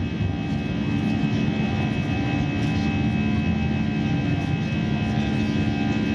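Airbus A320 jet engines running at high thrust during the climb-out after takeoff, heard from inside the cabin beside the wing engine. A steady roar with a few steady humming tones in it.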